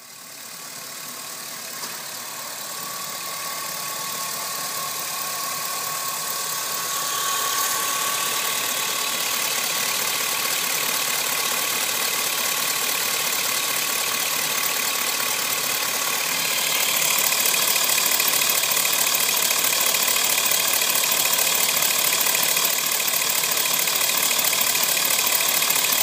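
A steady mechanical running noise, like an engine, that grows louder in steps about 7 and 17 seconds in.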